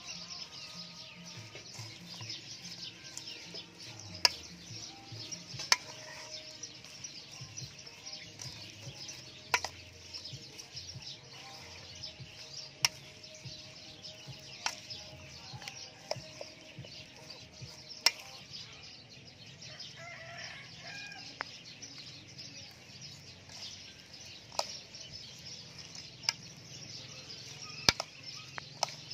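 A metal spoon clinking sharply against a stainless steel mixing bowl every second or few, irregularly, while a salad of leaves and raw shrimp is tossed, over a steady soft hiss.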